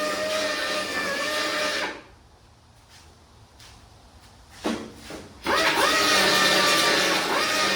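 Handheld power tool grinding surface rust off sheet metal, running with a steady whine. It shuts off about two seconds in, then spins up again with a rising pitch a little past halfway and runs on steadily.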